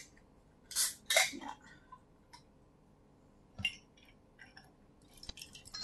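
A handful of clinks and knocks from a glass and an aluminium drink can being picked up and handled, the loudest pair about a second in, then scattered light taps.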